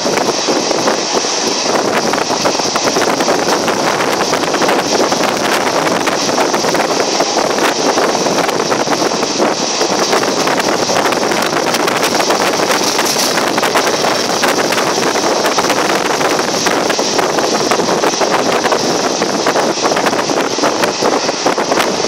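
Wind buffeting the microphone at the open door of a moving passenger train coach, over the coach's steady running noise on the rails.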